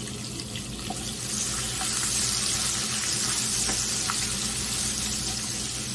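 Sliced onions sizzling in hot oil in a kadai over a tempering of dried red chillies and curry leaves, stirred with a spatula that ticks lightly against the pan. The sizzle grows louder about a second and a half in.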